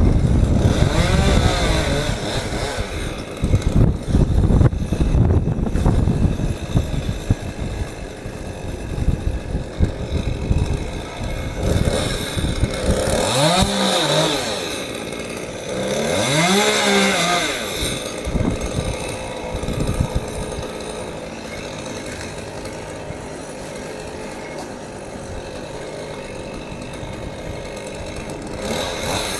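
Chainsaw up in the tree, revved up and back down in pitch about a second in and twice near the middle, running more steadily in between.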